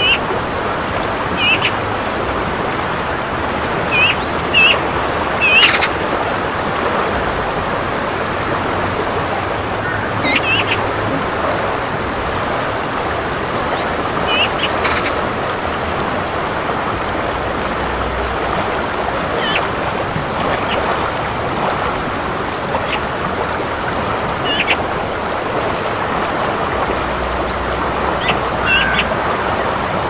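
Chuya mountain river rushing in a steady, even roar of water, with short bird chirps coming every few seconds over it.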